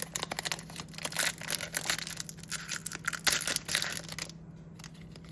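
Foil wrapper of a Pokémon booster pack being torn open and crinkled, a dense run of crackling and tearing that stops about four seconds in.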